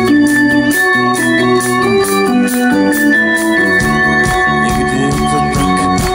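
Live band music: an organ-like electronic keyboard plays held, changing chords over a steady beat, the instrumental lead-in to a pop song.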